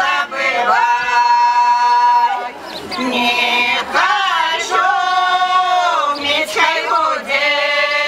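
Women's village folk choir singing a Belarusian folk song a cappella in several voice parts, with long held notes.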